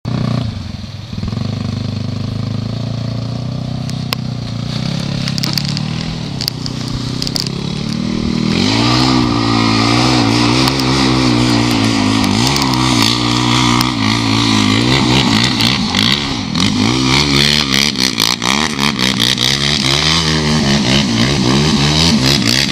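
ATV engine running steadily at first, then from about eight seconds in revving up and down again and again as it rides, louder. Quick clicks and rattles come through over the engine in the later part.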